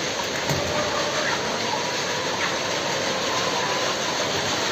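Steady mechanical running of a laying-hen house's automatic feeder line as it carries feed along the troughs. Faint hen calls come and go over it.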